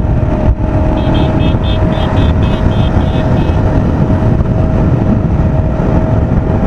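Motorcycle riding on the highway: loud wind and road rumble on the rider's microphone with a steady engine whine. A quick run of short high beeps, about four a second, runs from about one second in to about three and a half seconds in.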